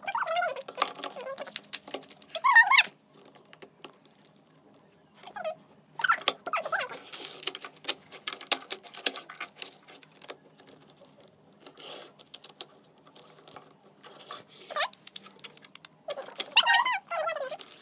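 Hard plastic parts of a CAT Junior Operator Machine Maker toy bulldozer clicking and clattering in quick, irregular taps as they are handled and fitted together. A few short squeaky sounds come at the start, near the end and twice in between.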